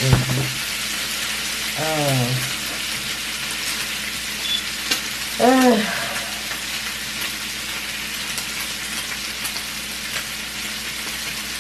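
Bacon and sausages frying in grease in a pan: a steady sizzle with scattered small pops.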